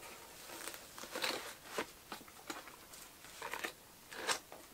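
Faint rustling and light taps of packaged merchandise being handled and put away into a box, coming as a handful of separate short rustles at irregular intervals.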